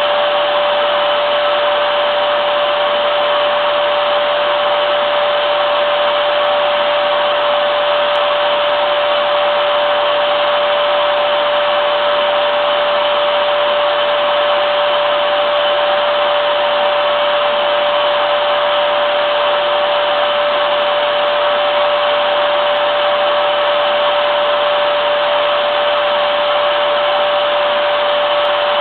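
Hoover vacuum cleaner running steadily: a constant rushing of air with a steady motor whine.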